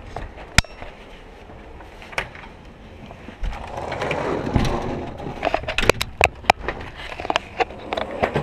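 Handling sounds of walking out of a house carrying a skateboard, picked up by a body-worn action camera: scattered sharp clicks, a rustling push about four seconds in as a storm door is shoved open, then a quick run of footsteps and knocks.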